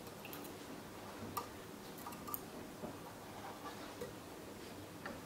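Faint, scattered small clicks and ticks from hands handling the overlocker's metal presser-foot and needle area while pulling threads through, the sharpest about a second and a half in, over a light steady background hum.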